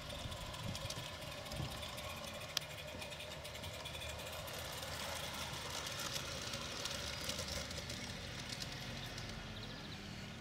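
Small 16mm-scale live-steam garden-railway locomotive running steadily past on its track: a quick, even patter of exhaust beats over a faint hiss.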